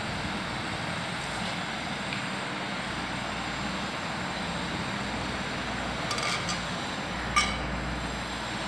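Steady background hiss, broken by a few light clicks about six seconds in and one sharp, ringing metallic clink a second later from a stainless-steel watermelon slicer tube.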